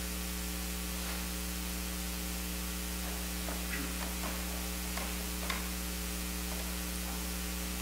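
Steady electrical mains hum in the audio system, with a few faint small knocks or rustles about halfway through.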